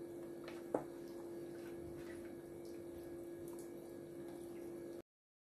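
Hands squishing and rubbing marinade into raw chicken: soft wet squelches and small clicks over a steady background hum. A sharp click about three-quarters of a second in is the loudest sound, and the sound cuts off to silence near the end.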